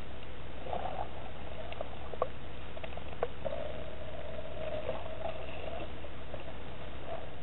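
Underwater ambience picked up by a submerged camera: a steady low rush of water with a faint wavering hum for most of the time, and two sharp clicks about two and three seconds in.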